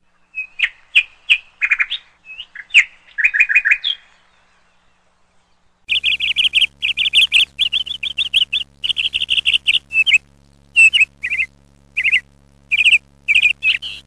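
Indian ringneck parakeets chirping: quick series of short, high chirps, a short pause about four seconds in, then a longer run of rapid chirps.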